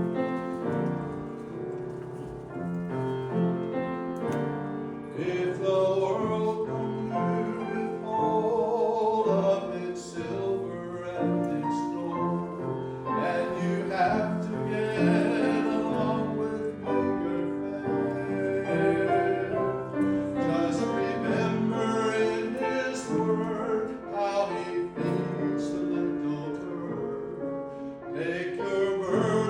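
A man singing a solo with vibrato over piano accompaniment.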